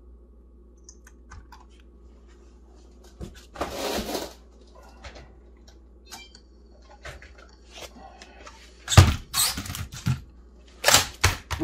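Hands working on a small RC car and its metal chains: light scattered clicks and taps, a brief scrape about four seconds in, then a run of louder sharp knocks near the end as the chassis is moved and set on the table.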